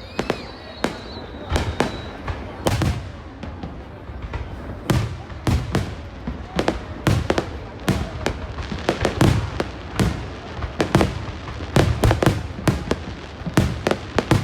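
Aerial fireworks display: a rapid, irregular string of bangs and crackling pops, with deeper booms among the sharper reports.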